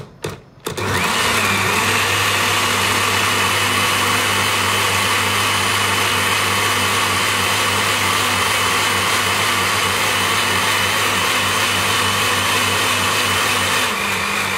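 Dawlance countertop blender switched on with a few clicks of its dial, its motor then running steadily as it purées watermelon chunks into juice. It is switched off near the end and begins to wind down.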